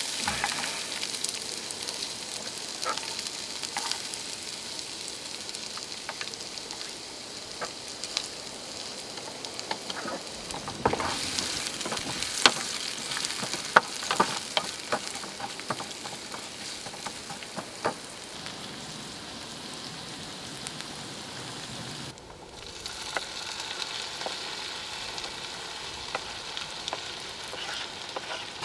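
Chopped red onion sizzling in a frying pan on a camping gas stove, stirred with a wooden spatula that clicks and scrapes against the pan now and then.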